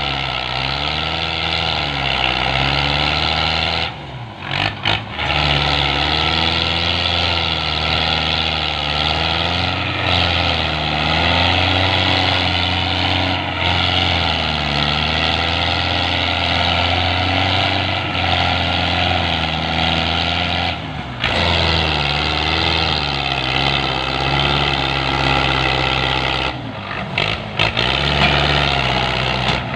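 Belarus tractor's diesel engine labouring under heavy load, pulling a loaded sugarcane trolley, with black smoke from the exhaust. The revs rise and fall repeatedly, and the sound drops out briefly a few times.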